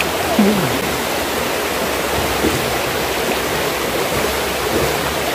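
Steady rush of flowing water from the stream at the dam, with a faint voice or two briefly in the background.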